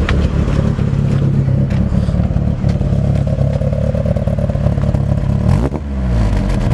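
Nissan 240SX (S13) engine running through its dual-tip exhaust, with a cammed idle; the throttle is blipped once near the end, the pitch rising.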